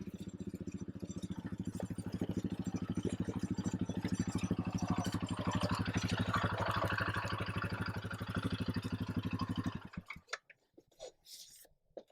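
Small engine running steadily with a fast, even low pulse, which stops abruptly about ten seconds in, followed by a few faint clicks.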